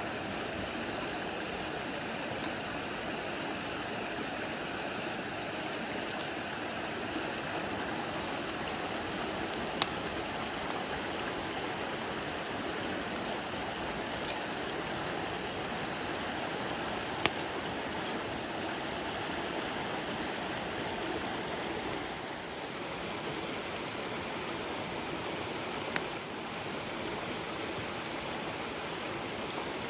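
Mountain stream rushing steadily over rocks. Three short, sharp clicks stand out above it.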